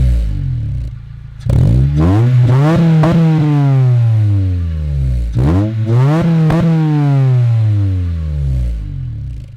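Acura RSX base-model K20A3 2.0-litre four-cylinder, fitted with an HKS Hi-Power exhaust and Injen short ram intake, revved hard twice while parked. Each rev climbs quickly, bounces briefly off a limiter around 5,000 rpm and then falls slowly back toward idle. The owner takes the limiter for one that cuts in when the car is in park. The tail of an earlier rev is dying away at the start.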